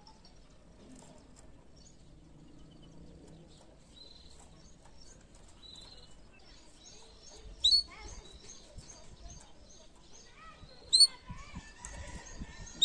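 Yellow canary calling: faint high twittering, then three loud, short, sharp chirps a few seconds apart in the second half.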